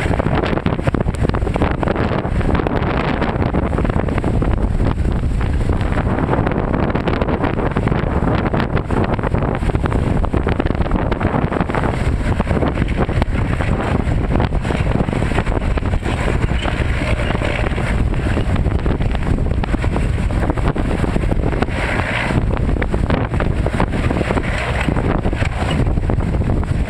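Strong wind buffeting the microphone without a break. Underneath it run the diesel engine of a PTS-M tracked amphibious transporter coming ashore and waves breaking through ice on the shore.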